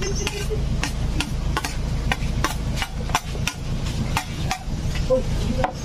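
A utensil knocking against the dish, about two or three knocks a second, as chopped onion, chili, ginger and cucumber are mixed together. A steady low rumble runs underneath.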